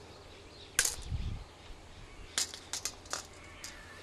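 Scattered sharp clicks over a faint background hiss. One strong click comes just under a second in, followed by a dull low thump, then a cluster of about five quick clicks in the second half.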